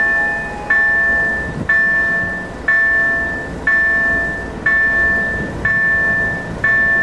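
Level-crossing warning bell dinging about once a second, each ring fading before the next, seven strikes in all. Under it runs the low sound of an approaching ChME3 diesel shunting locomotive.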